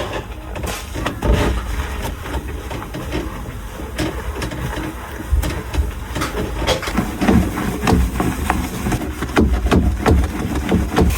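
Food containers and packages being handled and set down while a fridge is restocked: a steady run of irregular clicks, knocks and rustles, busiest in the second half.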